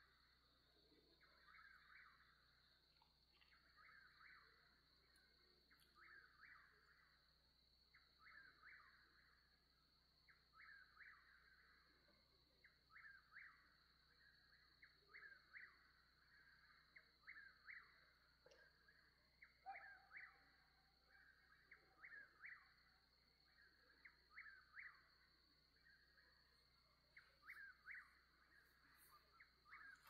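Faint night sounds: a bird repeats a short call over and over, roughly once a second, over a steady high-pitched insect trill.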